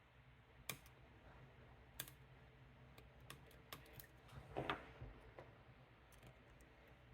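Faint, scattered sharp clicks and small rattles of a lock pick and tension wrench working the pins of an Assa 700 pin-tumbler lock, with the loudest short cluster of clicks about four and a half seconds in.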